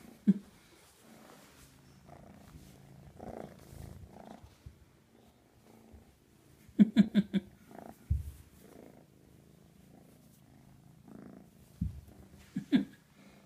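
American Shorthair kitten purring steadily while being stroked, close to the microphone. Several sudden knocks break in: one just after the start, a quick run of four about halfway through, and low thumps later on.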